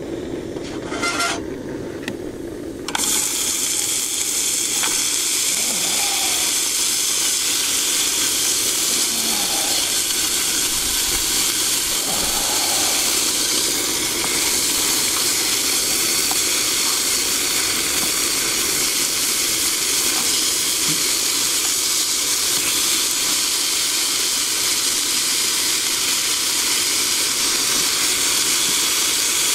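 Bacon frying in a frying pan on a camping gas stove: a steady sizzling hiss that starts suddenly about three seconds in.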